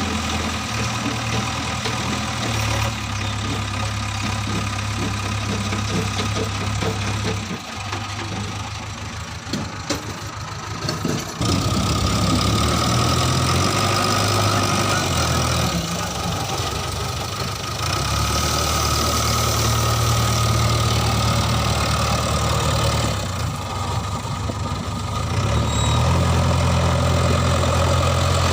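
Diesel engine of a JCB 3DX backhoe loader running under changing load while loading mud, its note stepping up and down several times. It drops back about eight seconds in and picks up again at about eleven seconds.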